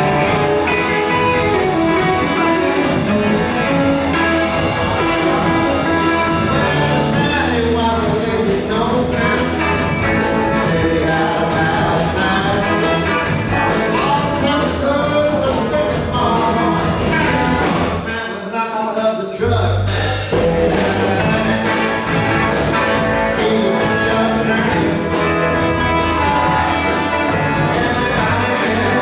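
Live electric blues band playing: electric guitars, upright bass and drums, with singing and amplified harmonica. About two-thirds of the way through the band briefly drops out in a stop, then comes back in with the bass.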